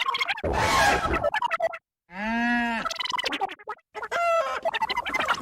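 Animal calls like farmyard sound effects, with one drawn-out call that rises and falls in pitch about two seconds in.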